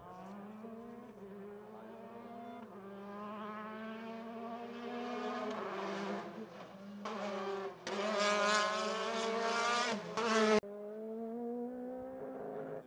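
A rally car's engine approaching at full throttle, its note climbing and breaking briefly at each upshift as it gets louder. About ten and a half seconds in the sound drops abruptly to a lower note that fades away as the car goes past.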